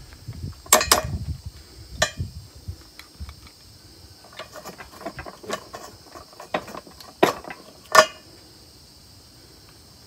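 Tongue-and-groove pliers and steel U-joint parts clicking and knocking as a bearing cup is worked out of a driveshaft yoke: a handful of sharp metal clicks with quieter ticking in between. The U-joint is worn, the one found to be bad.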